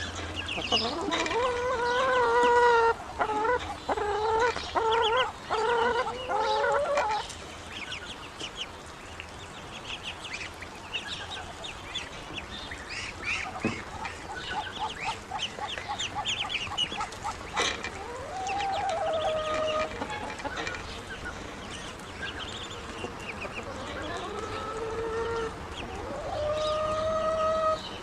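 Young ducklings calling: a run of loud, drawn-out calls over the first several seconds, then a steady chorus of rapid high peeps with a few longer calls breaking through near the end.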